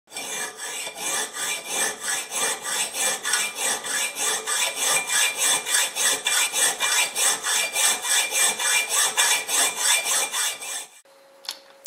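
Rhythmic back-and-forth rasping strokes of a hand tool, about three to four a second, stopping abruptly about eleven seconds in.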